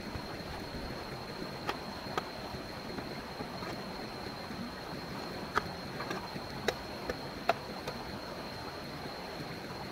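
Steady rush of running stream water, with a handful of sharp clicks or knocks, the loudest about three quarters of the way through, and a thin high steady tone behind it.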